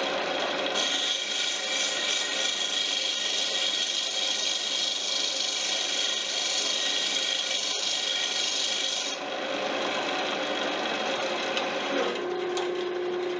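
A King Canada wood lathe runs with a steady hum while sandpaper is held against the spinning cedar paddle shaft, making a rough, steady rasping hiss as the end is taken down for a snug fit in a carbon fiber ferrule. The sanding hiss stops about nine seconds in, and the lathe's hum drops lower about three seconds later.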